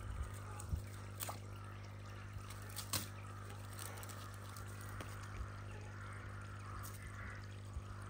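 Garden pond water trickling steadily, over a constant low hum, with a few scattered sharp clicks.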